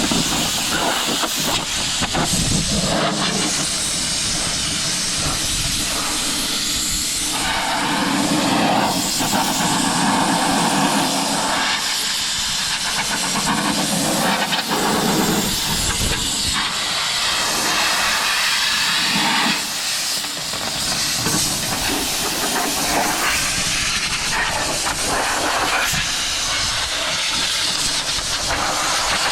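Compressed-air hose blowing dirt off a round baler: a loud, continuous hiss whose tone shifts from moment to moment as the blast moves over the machine.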